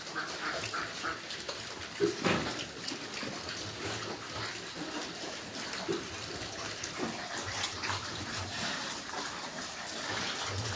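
Yorkshire piglets squealing in short, irregular cries, with one louder cry about two seconds in.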